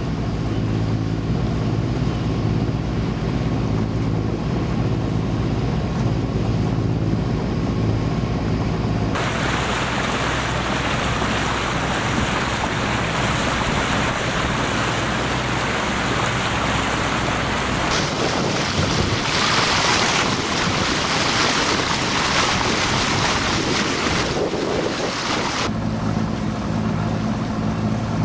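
Sailboat's Vetus M3.29 three-cylinder inboard diesel running steadily under way. About nine seconds in the sound switches abruptly to a loud rush of wind and water along the hull, and near the end the steady engine hum returns.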